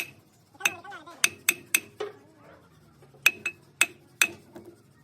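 Hammer blows on metal: about ten sharp, ringing strikes in quick runs with short pauses between them.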